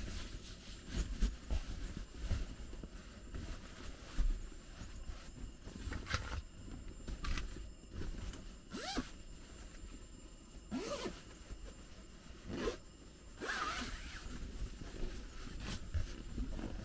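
A zipper pulled in several short strokes, about four over a dozen seconds, with low handling noise between them.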